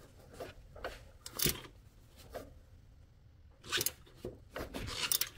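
Faint, scattered clicks and ticks from a ratchet wrench on the crankshaft pulley bolt as the M272 engine's harmonic balancer is turned slowly by hand. A slightly stronger click comes about a second and a half in, and a quick cluster comes near the end.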